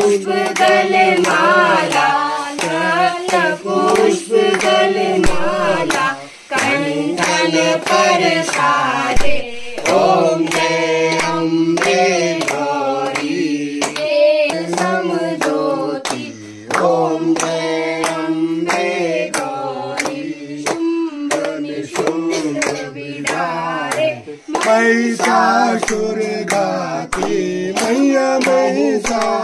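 A group singing a devotional song, with hands clapping a steady beat in time. The singing breaks briefly between lines a few times.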